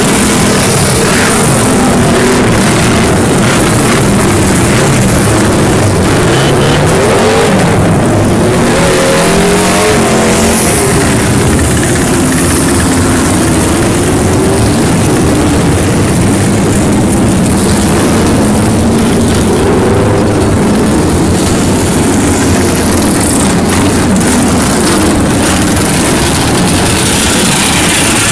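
A crowd of vintage motorcycle engines running together, loud and continuous, with several bikes revving up and down as they pull away onto the track.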